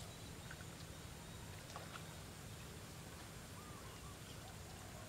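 Faint outdoor ambience at a lotus pond: a steady low rumble and hiss, with a few short, faint animal calls and light ticks now and then.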